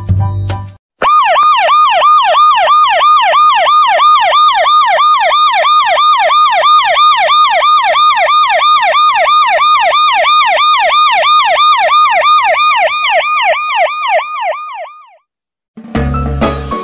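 Siren in fast yelp mode: a loud tone warbling up and down about three times a second, starting about a second in and stopping a little before the end.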